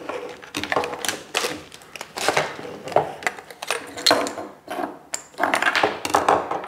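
Hard plastic parts of a small aquarium protein skimmer handled and pulled apart on a wooden tabletop: irregular clicks, knocks and scrapes as the hose and pump are worked loose from the clear body.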